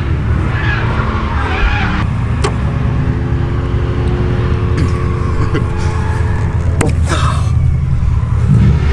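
Steady low rumble of car engines running, with a few sharp clicks or knocks, the loudest about seven seconds in.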